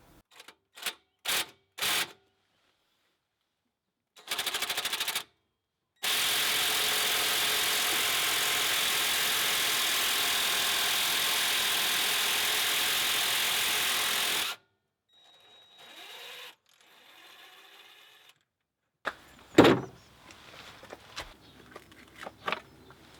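Power tool running in a few short bursts, then in one steady run of about eight seconds that cuts off abruptly, while parts are being removed during a water pump and timing belt change. Near the end come quieter tool handling noises and one sharp metallic knock.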